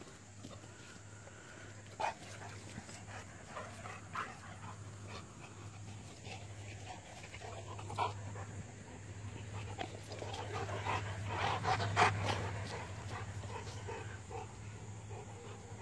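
A Doberman Pinscher puppy and a Saint Bernard puppy playing together: dog sounds, with panting, and a scatter of short noises. The play gets busiest and loudest around eleven to twelve seconds in.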